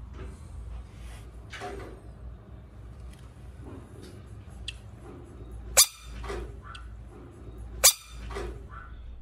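Two sharp, loud snaps about two seconds apart in the second half as large frogs lunge and snatch food held in the fingers, with softer scuffling and rustling between them.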